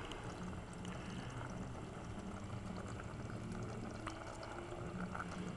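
Steady trickling and bubbling of nutrient solution in a General Hydroponics WaterFarm, water dripping from the top drip ring through clay pebbles back into the reservoir, with a faint steady low hum underneath.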